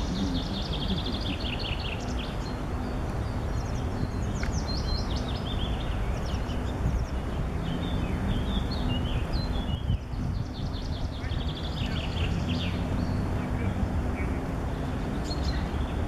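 Songbirds chirping and trilling in quick runs of high notes, over a steady low rumble.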